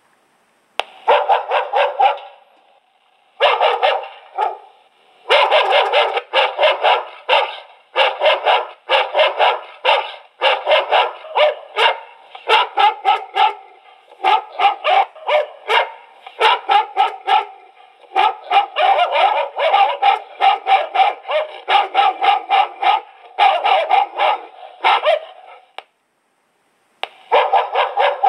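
Recorded dog barking played through the small speaker of an infrared motion-triggered cat-repelling device: rapid runs of barks with short pauses between them, sounding thin with no low end.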